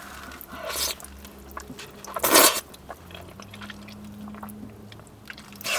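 A person eating close to the microphone: wet, squishy chewing with a few short bites, the loudest about two seconds in.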